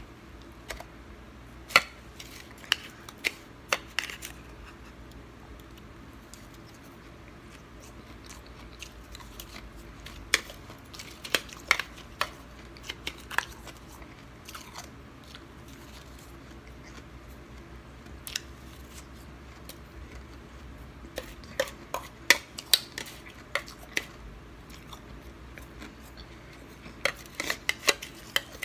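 Metal spoon clinking and scraping against a stainless-steel bowl of snow, in clusters of sharp clicks with quieter stretches between, along with the crunch of snow being bitten and chewed.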